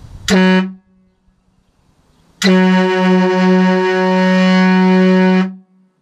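Semi-truck-style air horn kit with two 25-inch trumpets, fed from a 150 psi air tank, sounding from under a 1994 Ford F-150. One short blast is followed by a long blast of about three seconds, a loud steady low blare.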